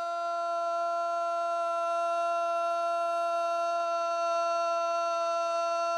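A single steady tone with a stack of even overtones, held without any change in pitch or level: the last sound of a man's voice frozen and sustained electronically along with a freeze-frame.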